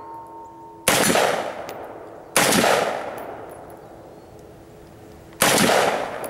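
Three gunshots, about 0.9 s, 2.4 s and 5.4 s in, each trailing off in a long echo. A faint ringing from a struck steel target hangs on after the first shot.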